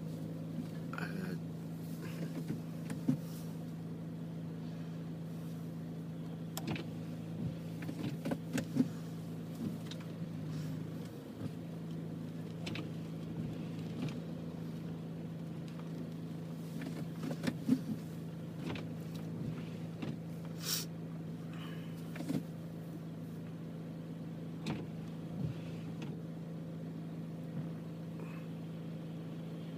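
A steady motor hum with irregular clicks and knocks over it.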